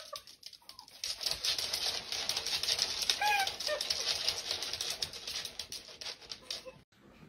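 A chihuahua's claws scrabbling and skittering on a wooden floor as it strains to pull its coat free of a cat's grip, a dense scratchy patter, with a few short high squeaks about three seconds in. It cuts off suddenly shortly before the end.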